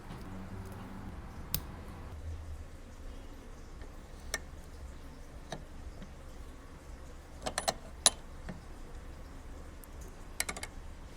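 Light, sharp clicks and taps of small tools and eyeglass parts being handled during a glasses repair. They come one at a time and in a few quick clusters, the loudest a little past the middle, over a low steady hum.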